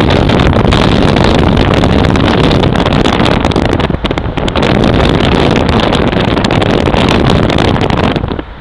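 Wind buffeting the microphone of a camera in a moving car, mixed with road and traffic noise. The noise is loud and steady, then drops off sharply near the end.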